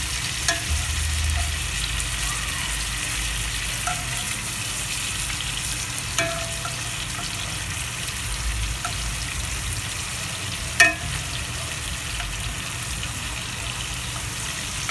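Scallops sizzling in melted butter in a cast-iron skillet, a steady frying hiss. Metal tongs click against the pan a few times as the scallops are flipped, with the sharpest clink about eleven seconds in.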